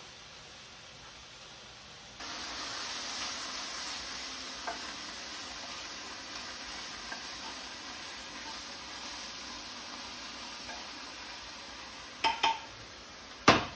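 Vegetables frying in a pan on the stove, stirred with a wooden spoon: a steady sizzling hiss that starts about two seconds in, with small scrapes and clicks. Two sharp knocks come near the end, then a single click.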